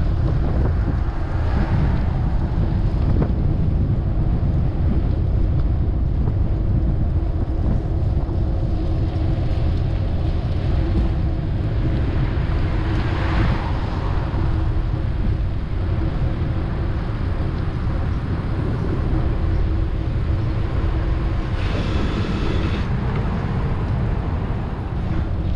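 Wind rumbling across the microphone of a moving bicycle, with street traffic passing. Near the end there is a brief pitched sound about a second long.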